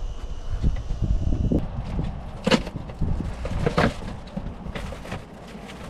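Wind rumbling on the microphone, with scattered handling clicks and two louder brief rustles, about two and a half and four seconds in.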